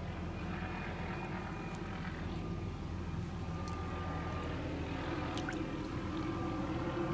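A steady low rumble like a distant engine, with light swishing of a hand moving through water in a plastic tub.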